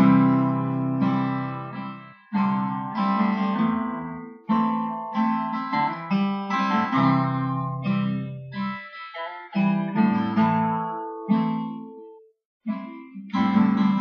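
Acoustic guitar strumming chords as a song's intro, each chord ringing and fading, with a brief pause near the end.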